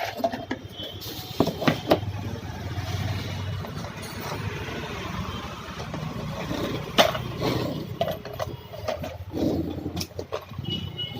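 A motor running steadily with a low hum, with scattered knocks and clatter.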